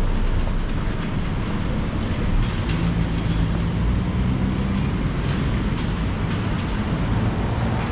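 Busy city street traffic: vehicles passing, with a low engine hum that swells for a couple of seconds around the middle.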